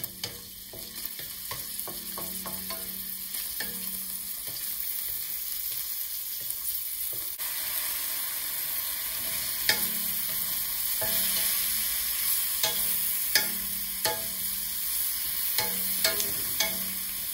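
Sliced garlic sizzling in oil in a stainless steel pan, stirred with a wooden spatula. About seven seconds in, sliced mushrooms go into the pan and the frying sizzle gets louder. In the second half the spatula knocks and scrapes against the pan again and again.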